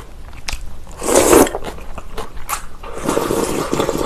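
A person slurps agar-agar noodles in cold soybean soup: a short, loud slurp about a second in. Near the end comes a longer slurping sip of the soup straight from a small glass bowl.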